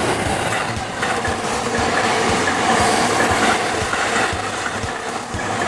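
JR E257 series electric multiple unit passing close by, its wheels knocking in a regular rhythm over the rail joints beneath the rumble of the cars. The sound grows louder toward the middle as the cars go by, then eases off.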